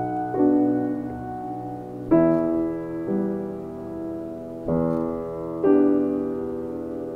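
Background music: slow solo piano playing soft sustained chords, a new chord struck every second or so, each one ringing and fading before the next.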